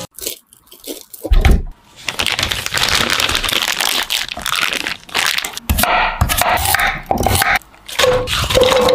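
A plastic zip bag crinkles and rustles as the luncheon meat inside is pressed and mashed to a paste by hand, with a heavy thump about a second and a half in. Near the end, napa cabbage leaves rustle and squeak as they are laid into a pot.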